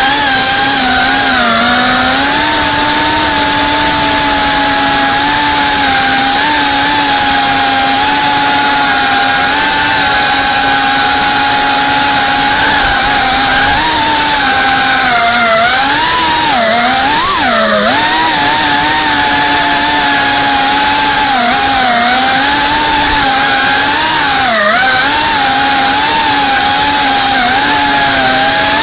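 Brushless motors and propellers of a GEPRC Cinelog35 FPV cinewhoop drone whining in flight, heard through the onboard camera. The pitch holds fairly steady and swoops down and back up with the throttle a little past the middle, and twice more briefly later.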